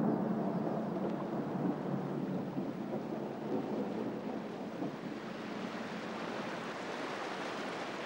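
Steady storm noise of wind and rain with a low rumble. About halfway through it opens into the broader rush of a river in flood.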